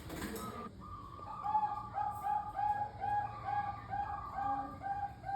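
Zebra dove (Bangkok-strain perkutut) cooing: a fast, even run of short coos at about four a second. A brief burst of noise comes before it at the start.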